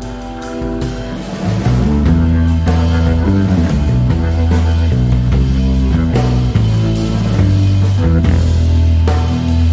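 Instrumental jazz-rock fusion played by a keyboards, bass and drums trio. About a second and a half in, a heavy low bass line moving in steps comes in and the music gets louder.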